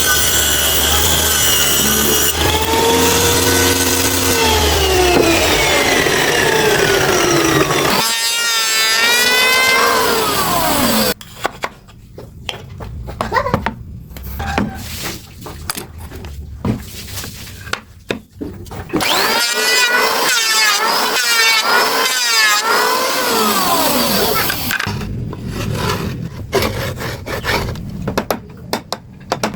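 Power saw cutting wood, its whine sliding down in pitch as the blade slows, alternating with quieter stretches of tapping and knocking on wood.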